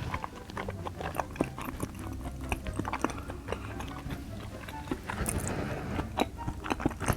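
Close-miked chewing: a dense, irregular run of small wet clicks and mouth smacks.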